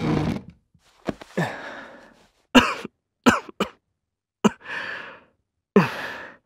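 A young man coughing in a fit, several short coughs one after another, from a cold he can't shake.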